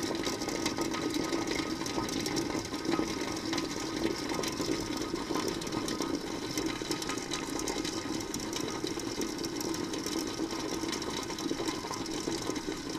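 Groen TDB 6-10 electric jacketed tilt kettle heating water close to the boil, making a steady, dense crackling rattle that the owner calls it "rocking" and "the noise".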